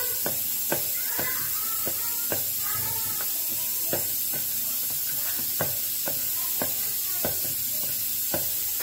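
Bread dough being kneaded by hand in a bowl: dull, unevenly spaced thumps, roughly two a second, as the fist presses and turns the dough against the bowl, over a steady hiss.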